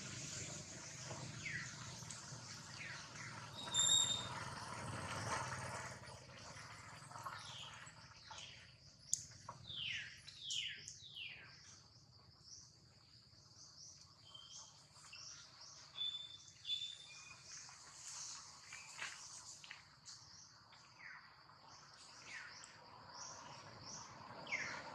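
Birds chirping: many short calls that slide down in pitch, some in quick runs of three or four, over a constant high-pitched buzz. A single brief high whistle sounds about four seconds in.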